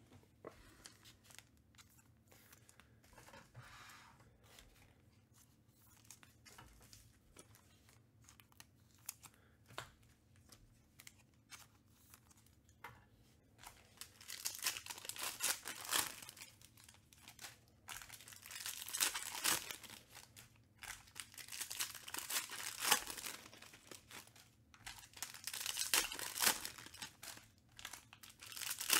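Foil wrappers of Panini Contenders baseball card packs being torn open and crinkled. The first half holds only light clicks of handling; from about halfway come four clusters of loud crinkling and tearing.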